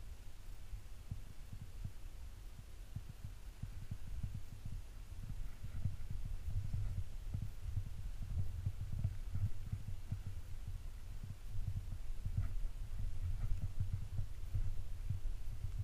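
Uneven, muffled low thumps and rumble from a GoPro camera in its sealed housing being jostled as its wearer moves through snow, with a few faint clicks.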